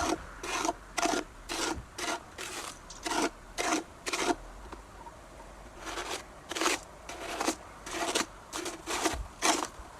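Snow crunching in a steady run of short strokes, about two a second, with a brief pause midway.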